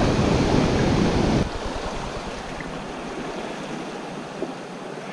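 Sea surf washing over shoreline rocks, with a low rumble of wind on the microphone; about a second and a half in it cuts abruptly to quieter, gentler water lapping.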